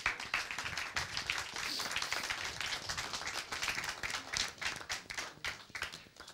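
Applause from a small audience: many hands clapping, thinning out and dying away near the end.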